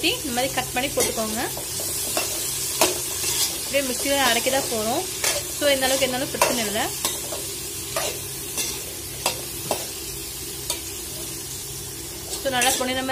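Sliced onions, shallots and unpeeled garlic sizzling in hot oil in a steel pot, stirred with a steel spoon that scrapes and clicks against the pot again and again.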